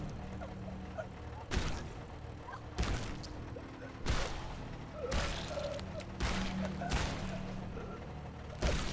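Heavy blows landing in a violent film attack: about seven loud thuds, roughly a second apart, over a low rumble.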